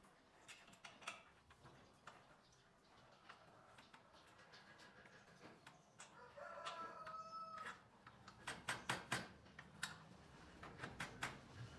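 A rooster crows once, faintly, about six seconds in: one held call of more than a second. Faint scattered knocks and taps sound around it, with a quick run of them shortly after the crow.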